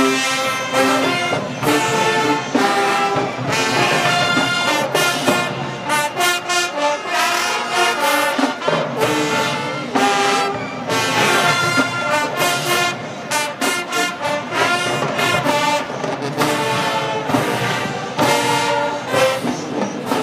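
High school marching band playing, led by brass (trombones and trumpets), with chords punched out in short rhythmic hits between held notes, heard from the stadium stands.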